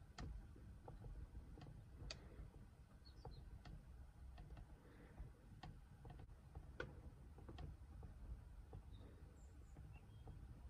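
Near silence inside a parked car's cabin, with a dozen or so faint, irregularly spaced ticks.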